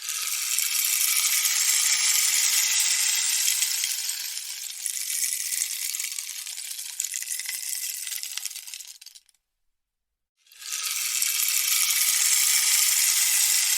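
Rainstick tipped over, its fill trickling down inside the tube as a dense, hissing cascade that eases off and fades out after about nine seconds. After a second of silence it is tipped again and the cascade starts anew.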